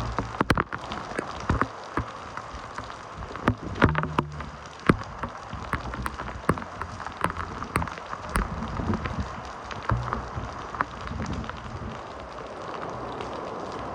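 Typhoon rain falling steadily, with many sharp taps of drops striking a nearby surface. Wind gusts buffet the microphone in low rumbles near the start, about four seconds in and again about ten seconds in.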